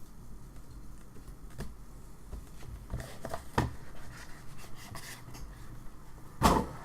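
Trading cards being handled during a box break: scattered light taps and clicks, with a louder knock near the end.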